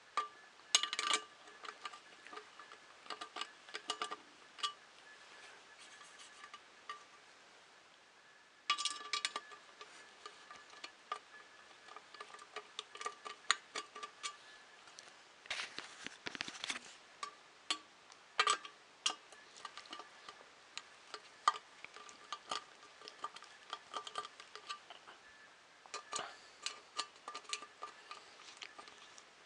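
Small metal screws and washers clicking and clinking as they are handled and driven into a printer frame panel with a screwdriver. The clicks are irregular, with a few short flurries of rattling.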